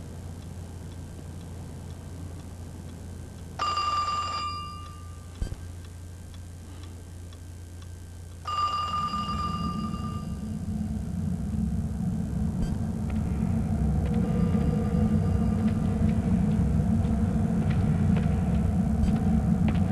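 A telephone ringing twice, about five seconds apart. After the second ring a low rumble swells steadily louder.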